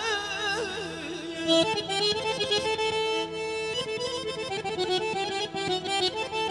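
Azerbaijani garmon (button accordion) playing a quick instrumental melody over percussion. A singer's wavering held note fades out in the first second.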